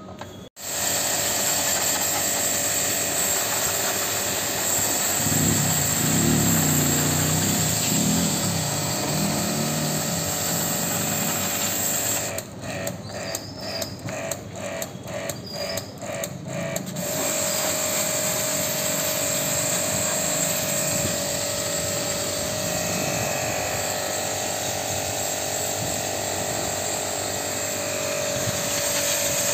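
Handheld electric high-pressure washer running, spraying water onto a split AC's blower wheel to clean it; its motor whine starts suddenly, stutters on and off about twice a second for a few seconds midway, then runs steadily again.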